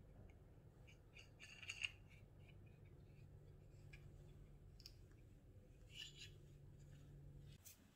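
Faint clicks and taps of small plywood parts being handled, as a hexagonal plywood knob is turned on its bolt, over a low steady hum that stops near the end.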